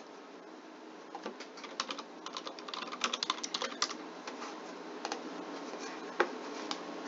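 Typing on a computer keyboard, picked up by the computer's own built-in microphone: a quick run of key clicks, then a few separate clicks near the end.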